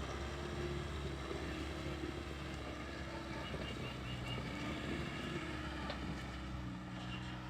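Skid steer engine running steadily, its note shifting near the end.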